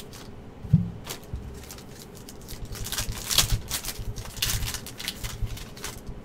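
Trading cards and card packs being handled: scattered rustles, slides and light clicks, with a dull thump about a second in.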